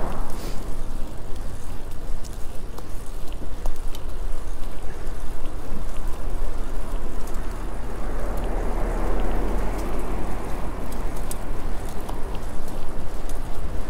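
Wind rumbling over the microphone of a GoPro action camera on a moving bicycle, with tyre and road noise and scattered small clicks and ticks. The noise swells for a few seconds past the middle.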